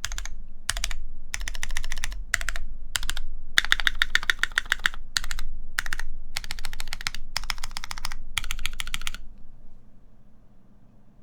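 Typing on a Keycult No. 2 mechanical keyboard with lubed Cherry MX Black linear switches, an aluminium plate and GMK keycaps. The keystrokes come in quick bursts of rapid clicks and stop near the end.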